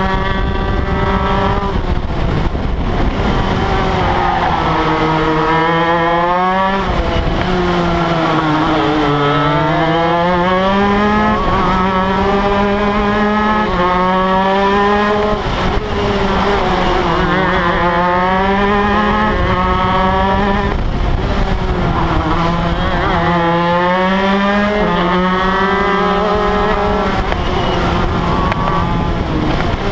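Shifter kart's two-stroke engine at race pace, heard onboard: its pitch falls off and climbs again over and over as the kart slows for corners and accelerates out, with small sudden steps in pitch along the way.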